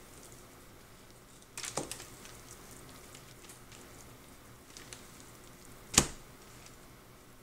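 Kitchen knife cutting raw lobster tail meat on paper and foil: a short rustle and clatter about one and a half seconds in, faint ticks, then a single sharp knock near the end.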